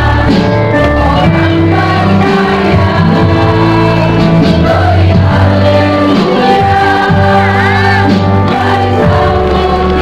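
Background music with singing over a steady bass line.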